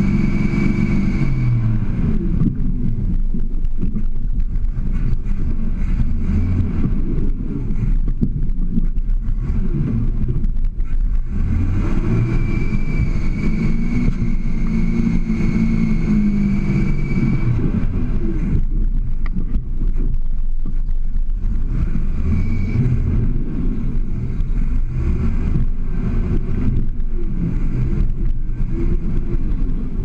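Toyota FJ40 Land Cruiser's engine working under load while rock crawling up a ledge, with revs surging and falling back several times, most clearly near the start and again in the middle.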